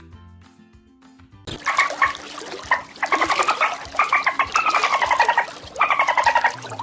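Soft background music, then about one and a half seconds in an animal starts a loud, rapid rattling call, repeated in several bouts that each fall in pitch.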